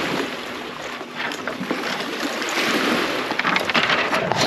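Twigs and branches rustling and scraping against a kayak and its gear as it pushes into brush, with many small clicks and crackles that grow busier in the second half.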